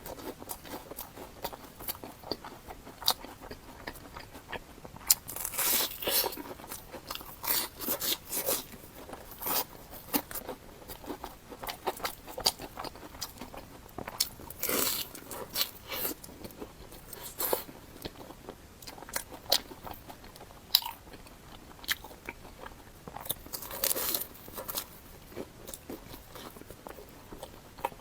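Close-miked eating: crisp, irregular crunches as a deep-fried bread sandwich is bitten into and chewed, with louder clusters of crunching now and then.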